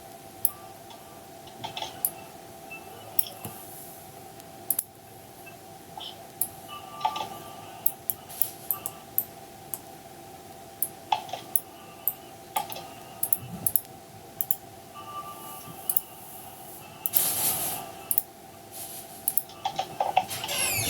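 Computer keyboard typing and mouse clicks: scattered sharp clicks at an irregular pace, over a faint steady hum, with a brief noisy swell about three-quarters of the way through.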